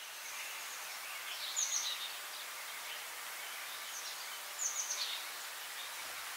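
Steady hiss with a short, falling, bird-like twitter laid over it twice, about three seconds apart. The hiss fades in and cuts off suddenly at the end, as a sound bed for a logo animation does.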